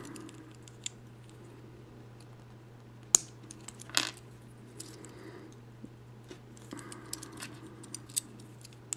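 Small hard plastic toy parts clicking and tapping as they are handled and pressed together: a sharp click about three seconds in, another a second later, then a scatter of light ticks near the end.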